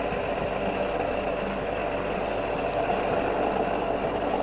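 Town AE4 radial arm drill running steadily under power, its geared head giving an even machine hum with several steady tones.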